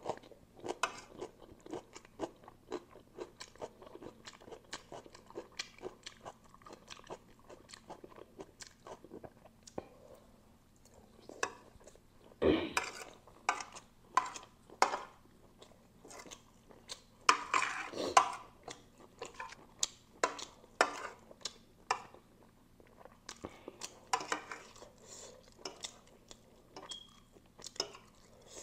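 Close-up chewing of spicy noodles: a steady run of wet mouth clicks and smacks, with a few louder, noisier stretches about twelve seconds in and again around seventeen to eighteen seconds.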